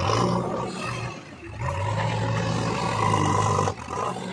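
Diesel engine of heavy earth-moving or lifting machinery revving under load: the revs rise at once, ease off about a second in, climb again and hold steady for about two seconds, then drop near the end.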